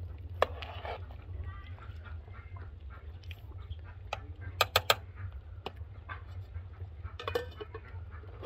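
Steel ladle stirring soup in an enamel pot, clinking sharply against the pot three times in quick succession about halfway through, with another clatter near the end. Farm animals call in the background.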